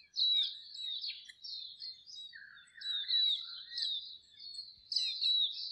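Birdsong: small birds chirping and twittering in quick, high notes, with a lower warbling phrase around the middle.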